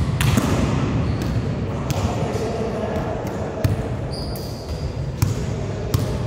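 Volleyball being struck and bouncing on a gym floor: separate sharp slaps and thuds at uneven intervals, echoing in a large hall over a murmur of players. There is a brief high squeak a little past four seconds in.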